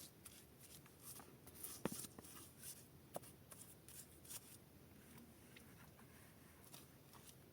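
Near silence with a few faint, scattered clicks and rustles, the loudest a little under two seconds in.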